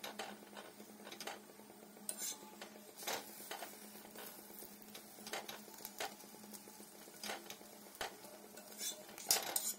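Spatula scraping and tapping on a flat tawa griddle as an egg-coated paratha is flipped and pressed down: scattered light clicks and scrapes, with a louder cluster near the end.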